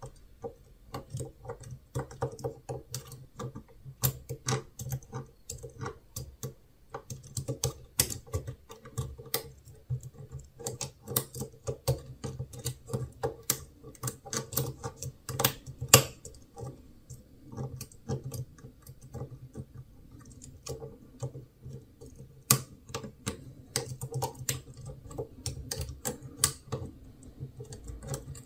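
Quick, irregular small metallic clicks and scrapes of a shallow hook pick working the pins of an LZ brass euro profile cylinder lock, held under tension by a long tension wrench in the top of the keyway.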